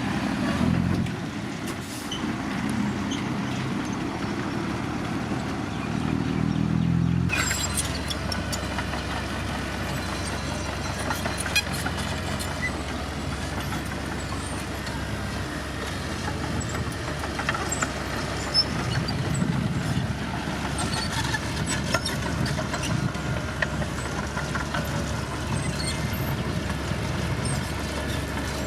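Heavy diesel road-construction machinery running steadily at a work site. About seven seconds in, the sound changes abruptly to a lower, steadier engine rumble with scattered sharp knocks.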